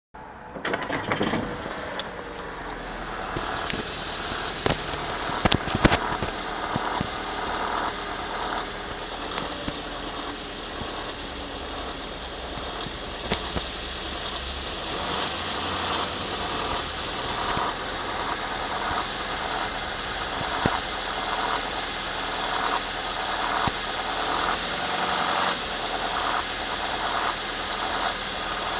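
Audi A3 8P 2.0 FSI four-cylinder petrol engine starting from cold, then idling with a steady, rhythmic metallic rattle. The owner takes the rattle for a stretched camshaft timing chain. A few sharp clicks come around five to six seconds in.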